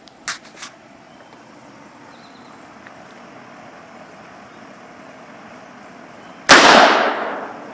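A single loud shot from a black-powder percussion muzzleloading pistol about six and a half seconds in, dying away over about a second. Two sharp clicks come near the start.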